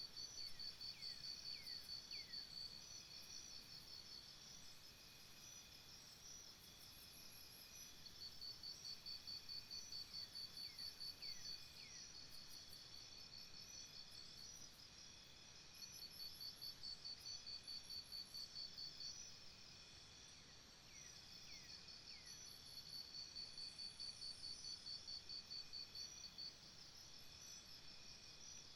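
Forest insect chorus: a high, pulsing cricket-like trill comes in bouts of about three to four seconds, recurring roughly every seven to eight seconds, over a steady high insect drone. A few short falling chirps sound now and then.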